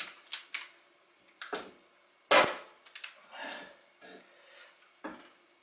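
Metal tools and engine parts being handled: a series of separate knocks and clinks with short scrapes between them, the loudest knock a little past the middle.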